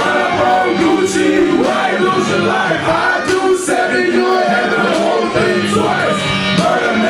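Loud hip-hop music played over a party sound system, with a rapping voice over the beat and sharp beat hits about once a second.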